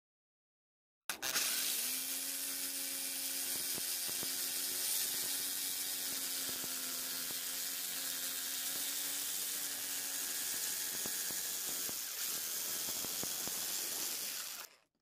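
Handheld electric power tool grinding and sanding a wooden sword-handle scale clamped in a vise: a steady motor whine over a grating hiss. It starts about a second in and cuts off just before the end.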